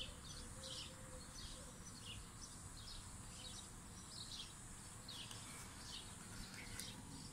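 Faint outdoor ambience: small birds chirping in short, irregular calls every half second or so, over a steady high-pitched insect buzz.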